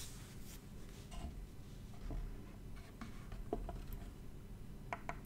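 Faint handling sounds of a printed circuit board being moved and turned over on a wooden workbench: light rubbing with a few small clicks, two of them close together near the end.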